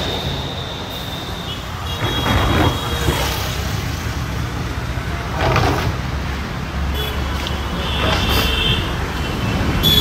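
Busy city street traffic noise with passing vehicles and scattered voices. A high steady squeal fades out about a second and a half in, and shorter high squeals come back later.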